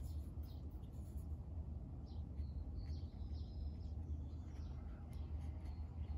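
Steady low background hum with a few faint, short, high chirps, like small birds calling, between about two and four seconds in.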